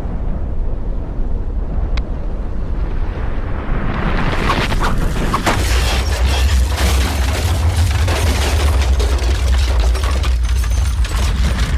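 Deep, continuous rumble of a simulated volcanic eruption. About four seconds in it swells into a louder roar full of crackles.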